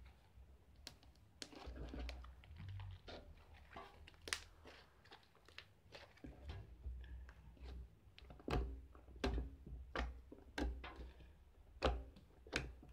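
Fluffy shaving-gel slime being squished and poked by hand, giving a string of small clicks and pops that grow louder and come closer together in the second half.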